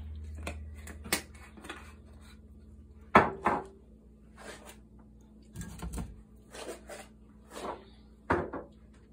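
A series of short knocks and clatters from kitchen items being handled: containers set down and cupboard or drawer doors shut. A loud double knock comes about three seconds in and another near the end.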